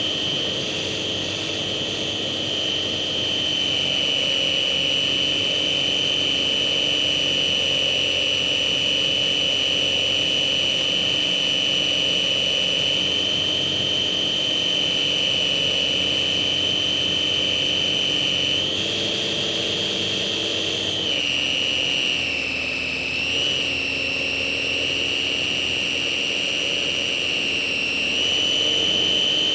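Electric motor and propeller of a Slow Stick RC model plane, a steady high whine that steps up and down in pitch several times in the second half as the motor speed changes.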